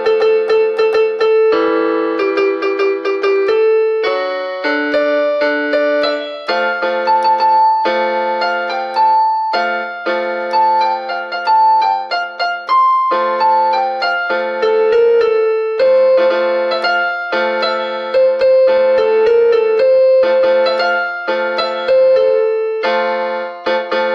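Instrumental music: a piano-like keyboard playing a melody over chords.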